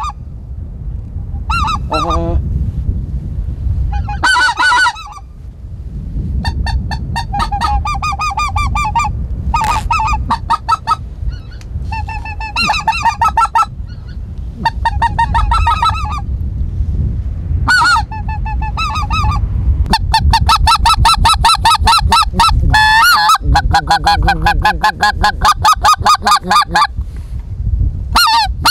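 Hand-blown white-fronted goose call sounding runs of short honks and yelps, in bursts at first and then in fast, almost continuous runs from about 20 seconds in. Wind rumbles on the microphone throughout.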